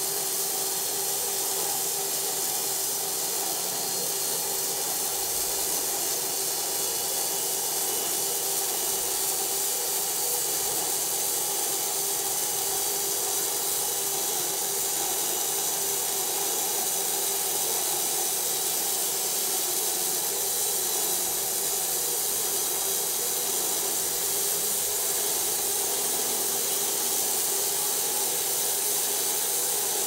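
Bandsaw mill sawing lengthwise through a silver maple log: a steady hiss of the blade in the wood over a steady machine hum.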